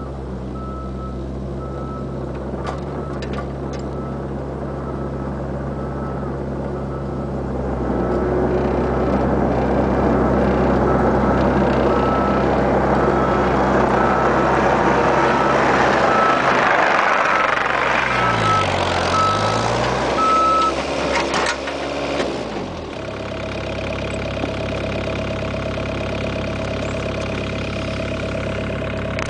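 Bobcat 430 ZHS mini excavator's diesel engine working under load, with its travel alarm beeping about once a second. About eight seconds in, the machine gets louder and busier. Near the end its engine pitch dips and recovers, then the beeping stops and the engine settles to a steadier, quieter run.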